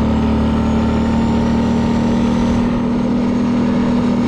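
Hytrack quad's engine running at a steady speed while riding, a constant hum with no change in pitch.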